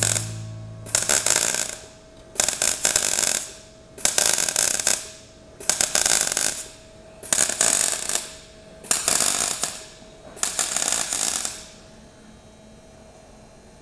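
220-volt MIG welder laying a butt weld on auto body sheet metal in short stitches: seven bursts of arc noise, each about a second long and roughly one every second and a half. The bursts stop about eleven and a half seconds in.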